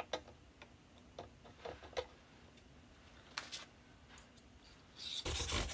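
Scattered light metal clicks as a fret file and tools touch the guitar's frets. About five seconds in, a run of quick rubbing strokes starts as a homemade fret-smoothing tool is worked along the fret edges.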